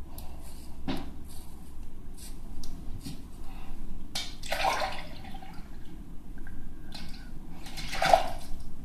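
Shaving at a bathroom sink with a hand razor: light clicks and scrapes of the razor, with two louder splashes of water, about four seconds in and near the end.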